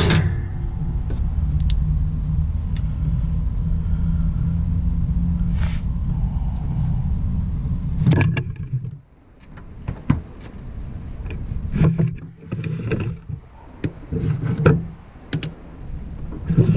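A motor runs with a steady low hum, then stops about nine seconds in. After that come several short low bursts of running and scattered clicks and knocks.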